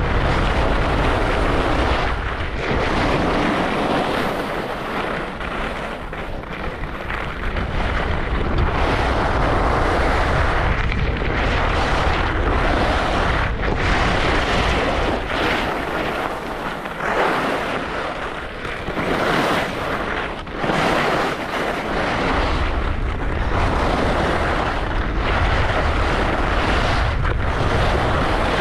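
Wind buffeting the microphone on a fast ski descent, a low rumble that comes and goes, over the steady hiss and scrape of skis on snow.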